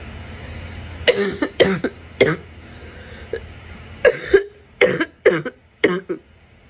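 A sick person's harsh, barking cough in two fits: three coughs close together, then after a short pause four more.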